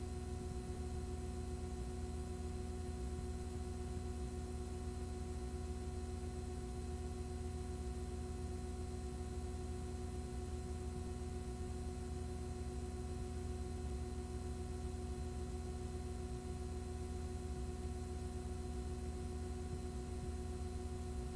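Steady electrical hum with several held tones over an even hiss, unchanging throughout, with no programme sound.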